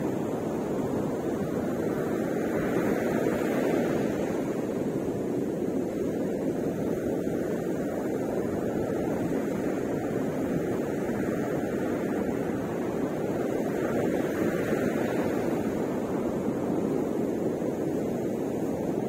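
Ocean surf breaking on a sandy beach: a steady rushing wash that swells a little louder twice, a few seconds in and again about three-quarters of the way through.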